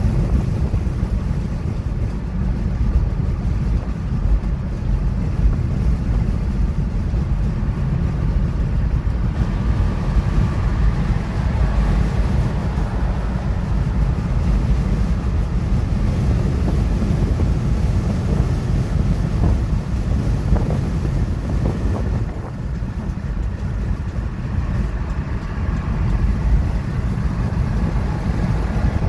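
Steady road and engine rumble heard inside the cabin of a car cruising on a highway. A brighter hiss joins it about a third of the way in and drops away again about two thirds through.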